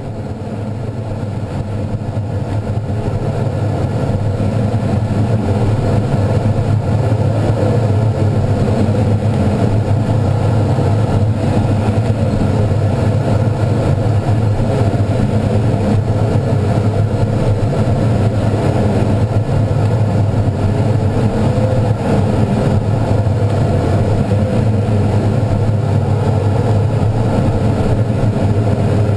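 Steady rush of air around the cockpit of an ASW-19B glider in a fast glide at about 200 km/h, a deep drone that grows louder over the first few seconds and then holds. A faint tone wavers up and down beneath it.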